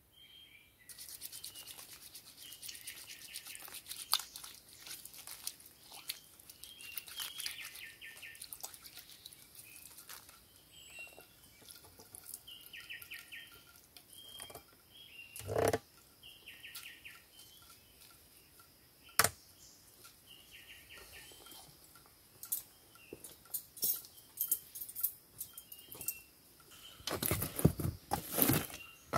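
Short bird chirps repeating over scattered sharp clicks and scraping, with one heavier knock partway through. Near the end comes denser crackling and clatter as a wood campfire is poked and tended.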